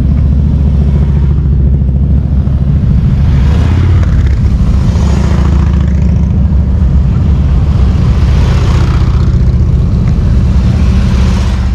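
Motorcycle engines rumbling heavily and without a break, swelling a few times as bikes pass close.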